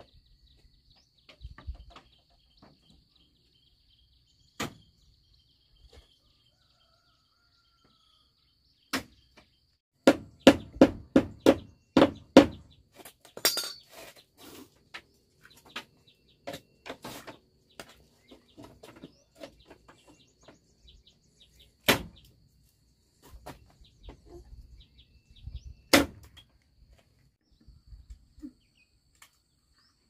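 Sharp strikes of a hand tool on bamboo during bamboo wall construction: a quick run of about a dozen blows, several a second, a little after a third of the way in, and scattered single knocks before and after. A faint steady high tone runs in the background.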